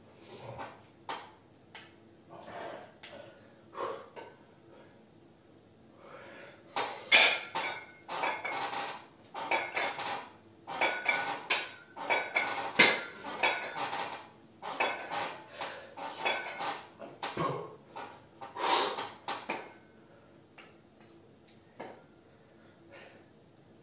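Metal clinking and rattling from a pair of 8 kg dumbbells, swung out and lowered on repeated bent-over reverse-fly reps. A few clinks at first, then dense clinking from about 7 s to 20 s, then a few more near the end.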